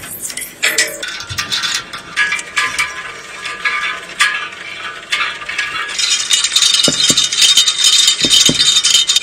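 Painted parts of a model excavator being handled and fitted by hand: a run of small clicks, knocks and rattles, growing busier and louder over the last few seconds.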